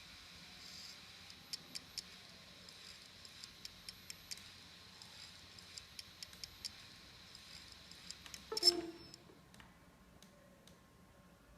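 Samsung ST1000LM024 laptop hard drive with a damaged head, clicking irregularly as it runs. About eight and a half seconds in there is a louder clunk, after which only a few scattered clicks remain.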